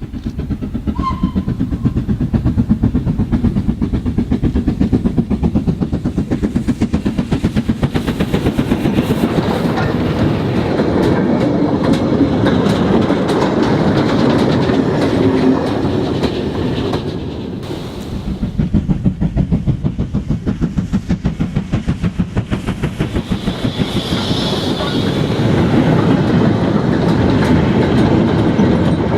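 An OO gauge model train running on the layout's track, with a fast, regular clicking of its wheels over the rail joints. It gets softer and louder again as the train passes.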